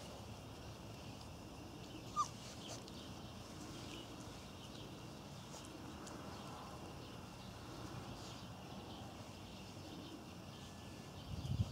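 Irish Terrier puppies moving about on grass, faint rustles and ticks, with one short high squeak from a puppy about two seconds in. A low rumbling noise begins just before the end.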